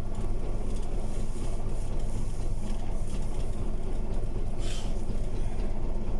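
Diesel engine of a crawler bulldozer running steadily, a low even drone with no change in speed.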